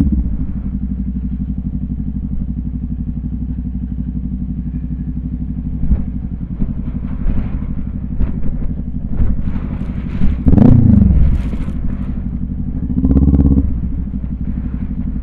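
Motorcycle engine running at low speed with a steady low drone. About ten seconds in the revs dip and rise again, and they swell briefly once more near the end. A few short knocks come through in the middle.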